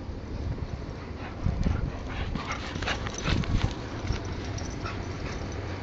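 A dog making short vocal sounds, most of them bunched about one and a half to four seconds in, over a steady low rumble of wind on the microphone.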